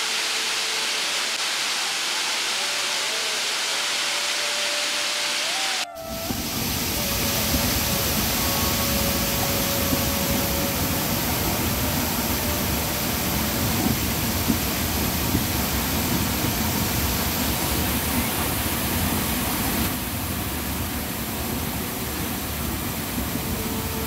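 Steady rushing roar of water falling at Badaghagra waterfall. About six seconds in it changes abruptly to a fuller, deeper rush.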